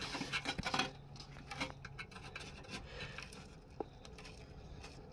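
Hands handling parts in a car's engine bay: rubbing and scraping, loudest in the first second, then faint scattered clicks and light rubbing.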